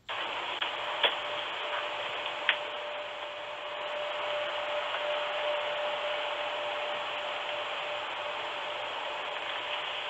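Hiss-laden audio from a Ring doorbell camera's microphone at night: a steady hiss with a faint, even hum through most of it, and two sharp clicks, about one second and two and a half seconds in.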